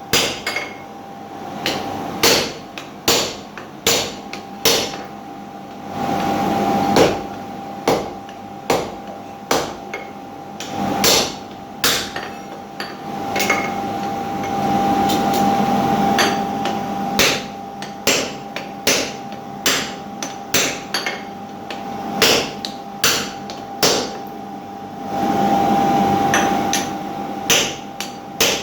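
Blacksmith's hammer striking steel on an anvil while forging an axe: sharp ringing blows in runs of about one to two a second, broken by short pauses, over a steady hum.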